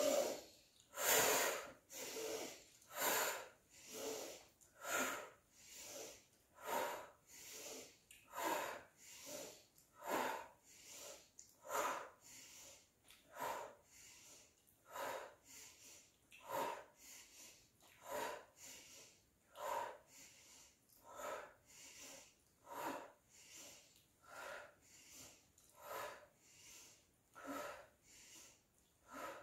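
Two people breathing in a steady rhythm, about one audible breath a second, drawing air in through the nose during a yoga breathing exercise.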